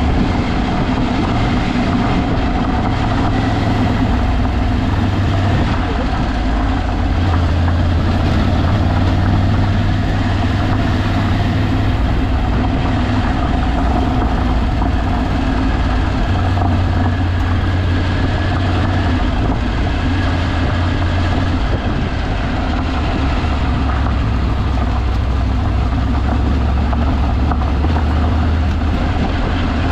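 Vehicle engine running steadily as it drives an off-road dirt track, a constant low drone mixed with even tyre and road noise.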